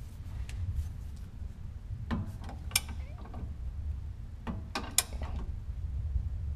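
Metal ratchet of a click-type torque wrench being worked on a shock skid mounting bolt: a few separate sharp clicks, the loudest about three and five seconds in, over a low steady rumble.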